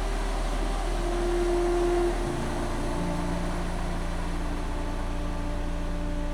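Ambient meditation music of long held notes, changing to a new chord about two seconds in, over the steady wash of ocean waves.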